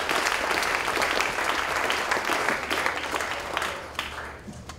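Audience applauding, dense clapping that thins out and dies away about four seconds in.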